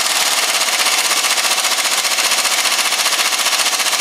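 Pneumatic impact wrench (air gun) with a 21 mm socket hammering continuously as it runs suspension bolts tight: a loud, rapid, even rattle.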